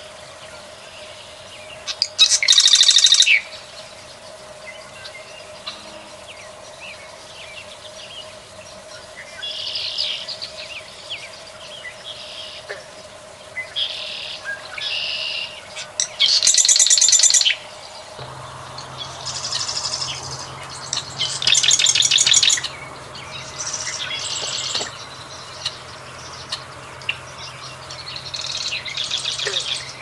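Perenjak sawah singing: short, rapid, buzzy trilled phrases repeated every second or few, the loudest about two, sixteen and twenty-one seconds in. A steady faint drone runs underneath, and a low hum joins about eighteen seconds in.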